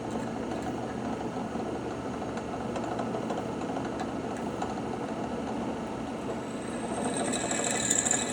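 Drill press motor running steadily, with a high-pitched whine that comes in about seven seconds in.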